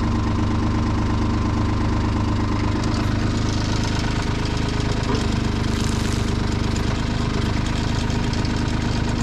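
Kubota B2650 tractor's three-cylinder diesel engine running steadily while the backhoe is worked out on its hydraulics, with a hiss joining in about three seconds in and easing off a few seconds later.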